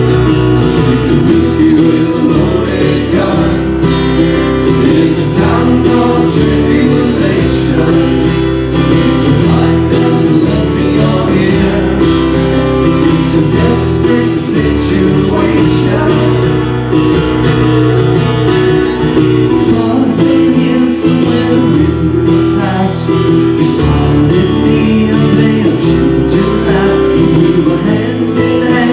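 Live acoustic band playing a song: strummed acoustic guitars with a man singing lead over them.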